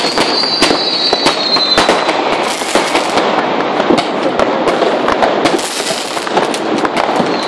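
Fireworks going off: a dense run of bangs and crackling from rockets and firecrackers. A high whistle from a rocket slides slightly down in pitch and stops about two seconds in.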